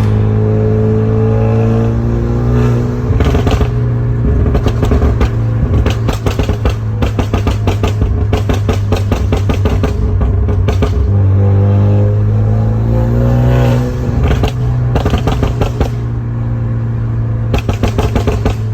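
Hyundai Genesis Coupe 2.0T's turbocharged four-cylinder engine running and being revved, its pitch rising twice, near the start and again about eleven seconds in.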